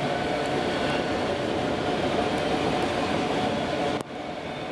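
Freight train's autorack cars rolling past close by: a steady noise of steel wheels on rail, with a faint steady hum in it. The sound drops abruptly about four seconds in.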